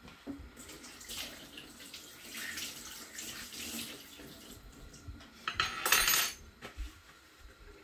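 Water running from a kitchen tap into a sink as hands are washed, with a louder burst of rushing water about six seconds in.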